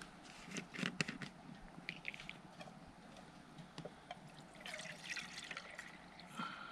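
Faint dripping and trickling water, with scattered light ticks and drops.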